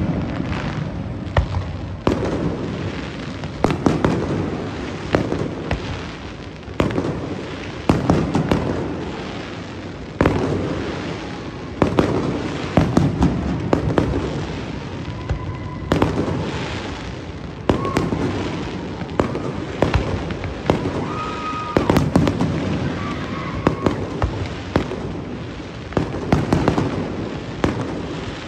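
Aerial fireworks shells bursting in quick volleys: clusters of sharp bangs every second or two, each followed by a rolling rumble that echoes off the surrounding high-rise buildings. A few brief whistling tones come through in the middle.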